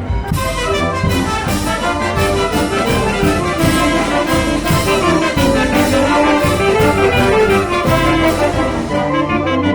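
Mexican wind band (banda filarmónica) playing: trumpets, trombones and other winds over a steady percussion beat with regular cymbal and drum strokes. A lively new passage starts just after a held chord breaks off at the very start.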